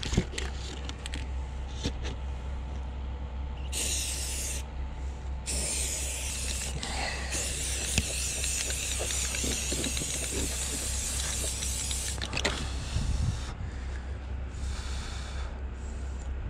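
Aerosol can of spray primer hissing in bursts: a short spray about four seconds in, a long continuous spray of about six seconds, then shorter sprays near the end.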